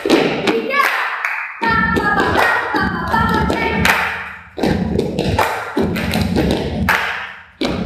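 Group body percussion played in unison: rhythmic hand claps and slaps on the body, in short phrases broken by brief pauses, with a short vocal phrase from the group about two seconds in.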